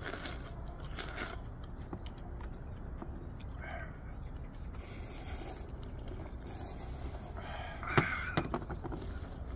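People slurping ramen noodles from bowls: several short hissing slurps, with a sharp knock about eight seconds in followed by a couple of lighter clicks.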